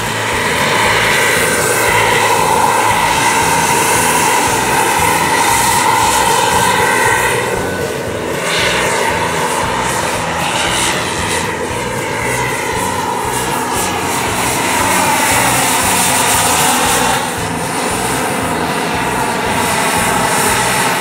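Turbine-powered radio-controlled scale Eurocopter EC135 model helicopter flying: a loud, steady turbine whine over a rushing noise. The whine's pitch bends down and up a few times as the model passes.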